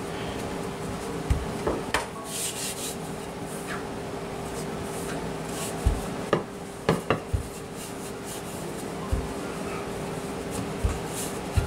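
Wooden rolling pin rolling out pie-crust dough on a floured countertop: soft rubbing and swishing, with scattered short knocks as the pin and hands meet the counter.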